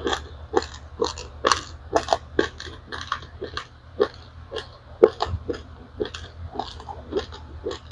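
Chewing a mouthful of dry-toasted raw rice grains: a steady run of short crisp crunches, about two to three a second.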